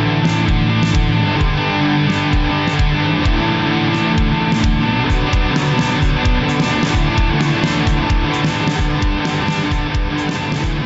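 Rock music: guitar over drums with a steady beat.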